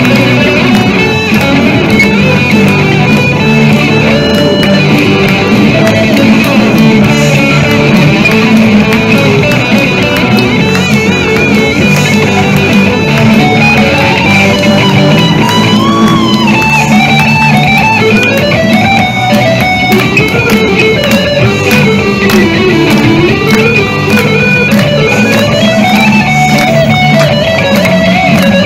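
Two electric guitars played live through amplifiers in a rock instrumental: a lead melody with wavering, bending notes over a steady lower rhythm part.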